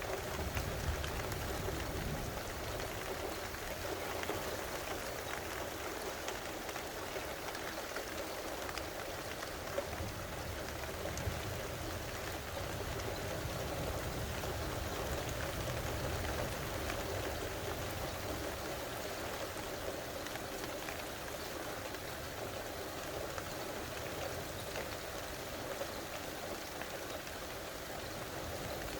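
Steady rain falling, an even hiss of drops, with a low rumble that swells up in the middle and fades again.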